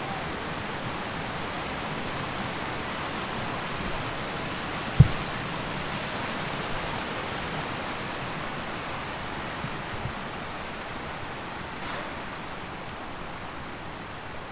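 A steady rushing hiss of outdoor noise, with one dull thump about five seconds in.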